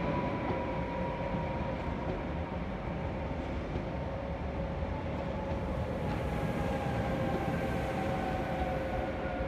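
Newag Impuls 2 electric multiple units rolling slowly into a station: a steady electric whine from the traction drive, several tones together that slowly fall in pitch as the trains slow, over a low rumble of wheels on rail.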